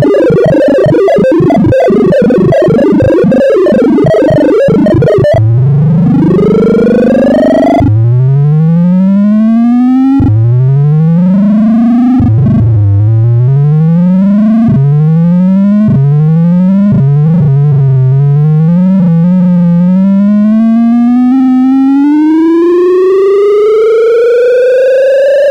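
Computer-generated tones of a shuffling-algorithm sonification, their pitch following the values being moved. First comes a dense, rapid jumble of tones jumping randomly in pitch as the naive 'Thilo' shuffle swaps elements. About five seconds in, the Lippert shuffle's quicksort of random keys takes over: a string of rising pitch sweeps that keep restarting low and come quicker and shorter, then one slow rise lasting the last six seconds or so.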